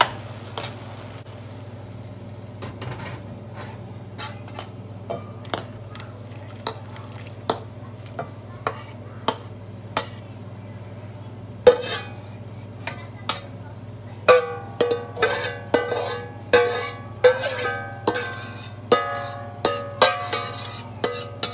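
Slotted metal spatula scraping and knocking against a steel wok, scooping cooked cabbage: scattered strokes at first, then about two-thirds of the way in quicker scrapes, each leaving a metallic ring, as the cabbage is scraped out of the tipped wok. A steady low hum runs underneath.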